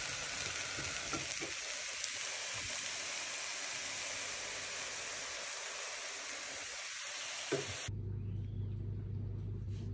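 Spring onion and grated coconut stir fry sizzling in a pan as a steady hiss, with a few light knocks of a wooden spatula. About eight seconds in the sizzle cuts off and a low steady hum takes over.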